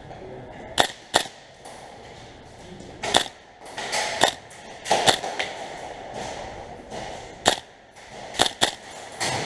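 Airsoft guns firing single shots: a string of sharp cracks, irregularly spaced, some close together in pairs.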